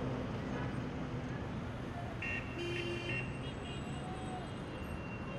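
Steady street traffic noise from passing vehicles, with a short high-pitched tone a little over two seconds in.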